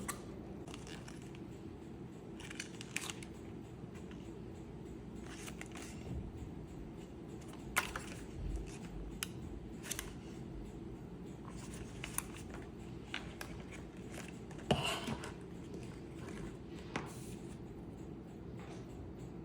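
Box and packaging of a steam iron being handled and opened: scattered clicks, rustles and a few sharper snaps over a steady low hum.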